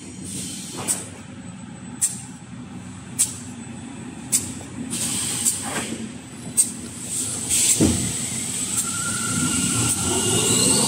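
Kitchen towel paper production line running: a steady machine hum with a sharp click about once a second. Near the end a whine rises in pitch.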